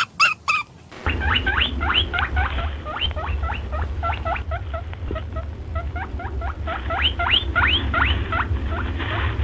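A small animal squeaking in a rapid series of short, sharply rising high squeaks, several a second, over a steady low hum. For about the first second, a different repeated pitched call is heard before it cuts over.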